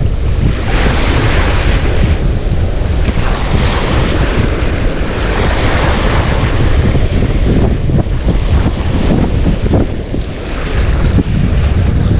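Wind buffeting the microphone in a constant low rumble, over the wash of sea waves.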